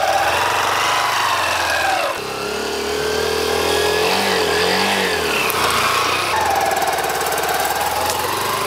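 Motorcycle engine running as the bike rides off carrying two people, its pitch rising and falling as the rider works the throttle.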